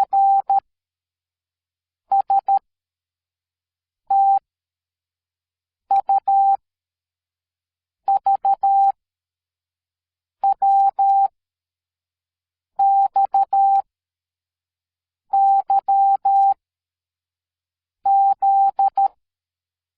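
Morse code sent as a single steady beeping tone. Short and long beeps come in clusters about every two seconds, with silent gaps between, and stop shortly before the end.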